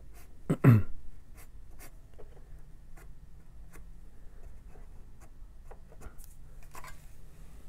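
Sharpie felt-tip marker drawing on a thin aluminum sheet: a scatter of faint short scratches and ticks as lines are marked out. A brief murmur from a man's voice comes just under a second in, louder than the marking.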